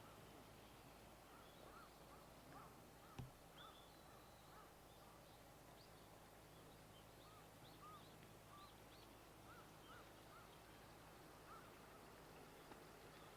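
Faint, short chirping calls of small wild birds, scattered irregularly throughout, with one sharp click about three seconds in.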